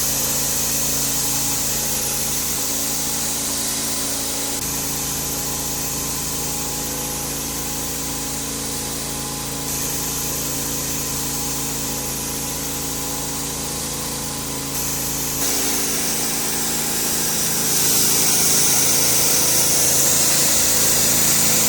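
Pressure washer running: a steady hiss of the high-pressure water jet hitting concrete over the steady hum of the machine's motor and pump. The sound shifts abruptly several times.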